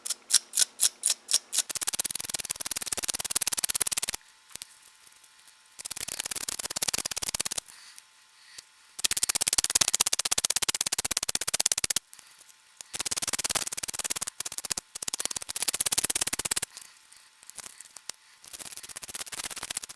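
Soft brass wire brush scrubbing corrosion off the small contact bar of a glove box light switch, so that it can again close the circuit between the two terminals. It opens with a run of separate quick strokes, then comes in several spells of fast scratching a few seconds long, with short pauses between.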